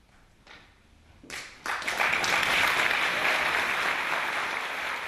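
Audience applauding: a few scattered first claps, then full applause breaks out about a second and a half in and carries on loud and steady.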